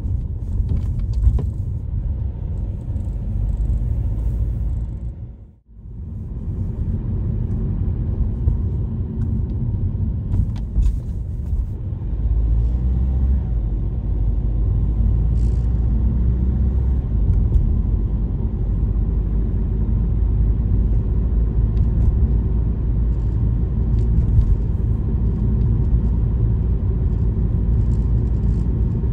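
Steady low road and engine rumble of a moving vehicle, with a brief drop-out about five and a half seconds in.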